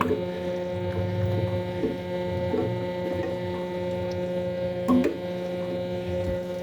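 Steady electrical hum with an even, buzzing pitch, broken by a few soft knocks, one about five seconds in the loudest.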